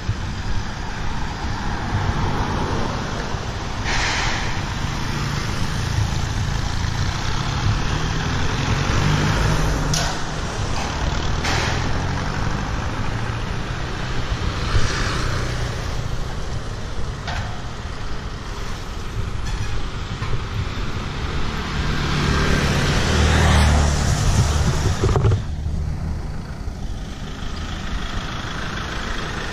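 Road traffic going by on a city street: cars, motorbikes and pickup-truck taxis, with a steady low rumble and a few short knocks. One vehicle passes close, swelling louder about three quarters of the way through.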